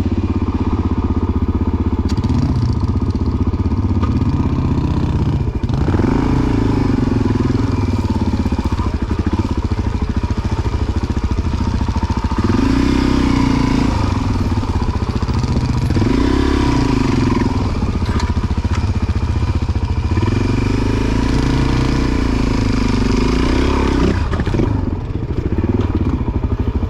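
A 400cc four-stroke single-cylinder dirt bike engine being ridden off-road, its pitch rising and falling over and over as the throttle is opened and closed.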